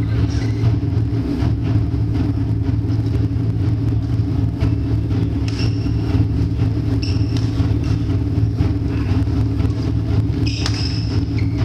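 Steady low rumble of room noise, with sports shoes squeaking sharply on the wooden court floor a few times as the players move: about halfway, a second or so later, and near the end. Faint light taps of rackets hitting the shuttlecock come through as well.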